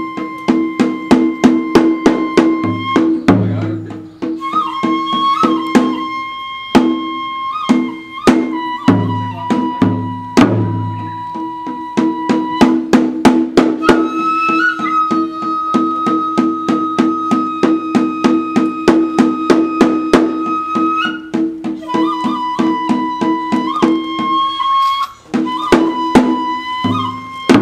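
Kagura shrine music: a Japanese transverse bamboo flute holds long high notes with small upward flicks, over a steady quick beat of drum strikes and now and then a deep boom from a large drum.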